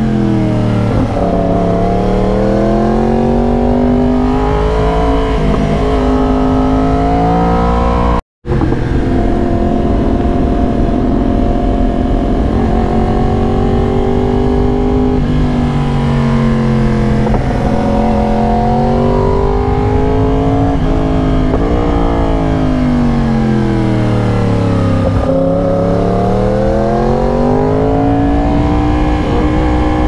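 2022 Yamaha R1 crossplane inline-four engine through an SC-Project aftermarket exhaust, running on the move, its revs climbing and falling repeatedly as the bike accelerates and slows. The sound cuts out completely for a split second about eight seconds in.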